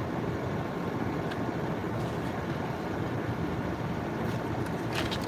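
Steady low rumbling background noise at an even level, with a few faint clicks near the end.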